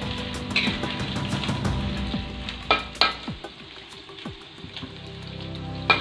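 Pieces of boiled chicken breast sizzling in hot oil in a wok, being stirred with a metal spatula. There are a few sharp clinks of the spatula against the wok, the loudest about three seconds in and just before the end.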